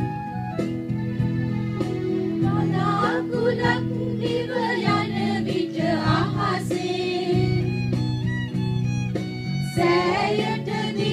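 A group of women singing a Sinhala Vesak devotional song together into microphones over sustained keyboard chords. The keyboard plays alone at first, and the voices come in about two and a half seconds in.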